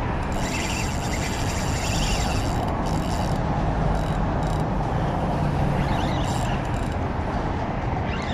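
Daiwa BG spinning reel being cranked, its gears whirring in several spells, the longest over the first couple of seconds. A steady rush of wind on the microphone runs underneath.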